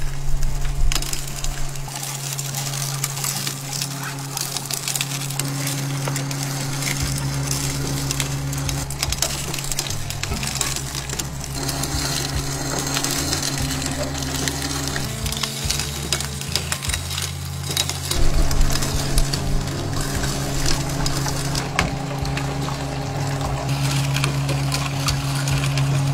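Electric sugarcane juicer's steel rollers crushing fresh cane stalks, with dense crackling and splintering over a steady low hum.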